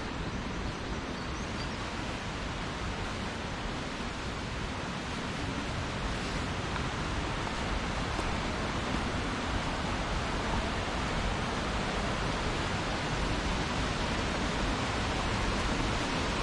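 A waterfall's steady rush of falling water, growing slightly louder.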